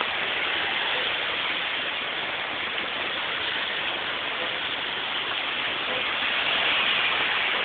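Heavy rain pouring down steadily, splashing on pavement and a wet street.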